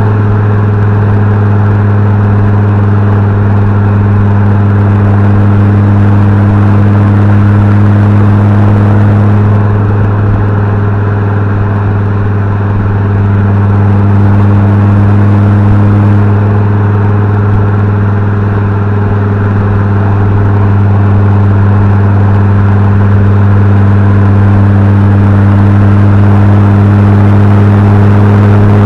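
Fiat Coupe 20V turbo's turbocharged inline five-cylinder engine and exhaust running at steady revs, a loud, even drone that holds one pitch with only slight dips in level.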